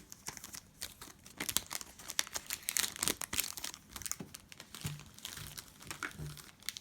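Foil trading-card pack wrapper crinkling and tearing as it is opened by hand: dense, irregular crackling throughout.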